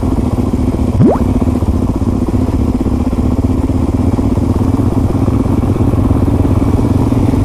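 Motorcycle engine running steadily while riding, heard from the bike, with a brief rising chirp about a second in.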